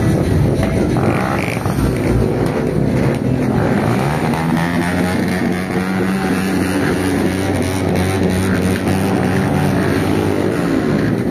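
Several small motorcycle engines running at low speed as a line of bikes rolls slowly past, with a steady, overlapping engine drone.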